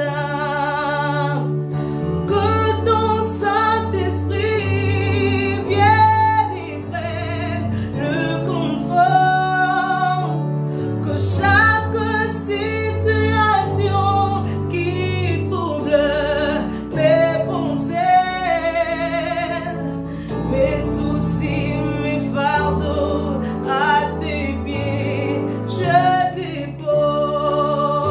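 A woman singing a slow gospel worship song with strong vibrato, over held low accompaniment chords that change every few seconds.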